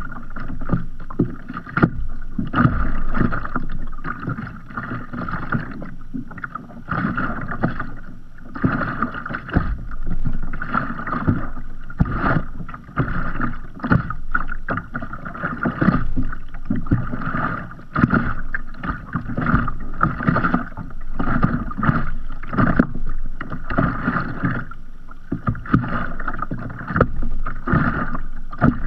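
Small sea waves lapping and slapping irregularly against the hull of a kayak floating at rest.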